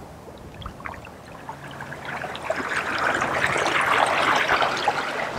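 Water rushing and splashing from the wake and prop spray of a fishing kayak driven at speed by a Torqeedo Ultralight 1103AC electric outboard, swelling as the kayak passes close by and easing off near the end.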